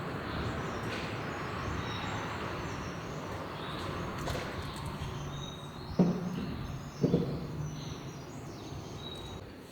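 Steady background noise with two sharp knocks a little over a second apart, past the middle, and a few faint, brief high chirps.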